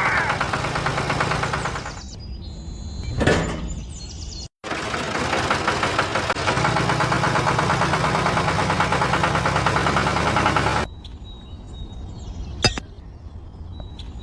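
A small battery toy motor and its gears running with a fast, even clatter, in two stretches broken off abruptly. Between them and after them it is quieter, with a few sharp clicks or knocks.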